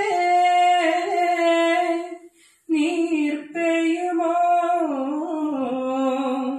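A solo voice singing long held notes with no instruments audible. It breaks off for a breath about two and a half seconds in, then comes back and steps down in pitch near the end.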